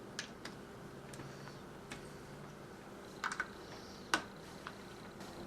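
Small plastic LEGO parts clicking as the model is handled: about seven sharp, irregular clicks, a quick cluster a little past three seconds in and the loudest single click about a second later, over a faint steady hum.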